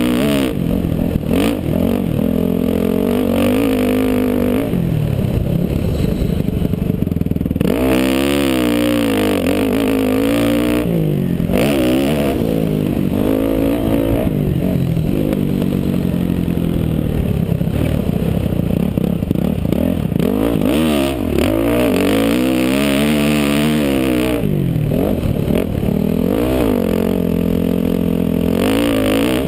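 Motocross dirt bike engine heard from a helmet camera, its pitch climbing and falling again and again as the rider opens and closes the throttle around the track. It briefly drops back to a lower, rougher sound a few times, around five seconds in and again near twelve seconds.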